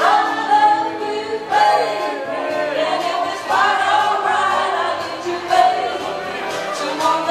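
A crowd singing a song together, many voices in unison, led by a singer on a microphone.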